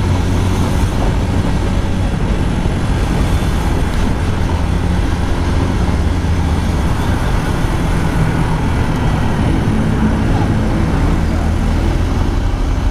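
Motorcycle engine running at a steady cruise, with wind and road noise from the ride and surrounding traffic.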